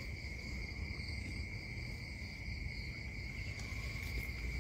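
Night insect chorus: a steady, unbroken high trill over a low rumble.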